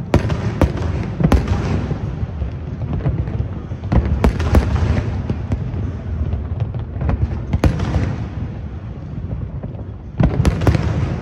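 Aerial fireworks display: sharp bangs of bursting shells come in clusters every few seconds over a continuous low rumble and crackle.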